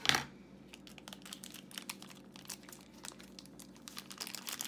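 Thin plastic foil pouch being pulled open and crumpled by hand, with many small, irregular crinkles. There is a louder burst at the very start.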